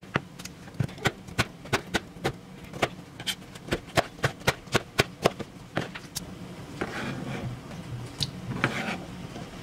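A kitchen knife dicing a tomato on a cutting board: sharp, even knocks of the blade on the board, three to four a second and getting quicker. After about six seconds they stop and give way to a softer scraping rustle as the diced pieces are gathered off the board.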